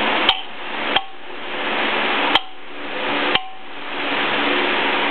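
Four sharp metallic clicks with a brief ring, at uneven intervals, from a drink can being tapped in a tabletop can game, over a steady background hiss.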